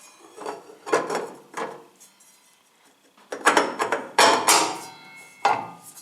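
Metal clinking and clanking of steel tools and parts on a table saw while a blade is being changed. It comes in two clusters of sharp knocks about three seconds apart, with a last clank near the end.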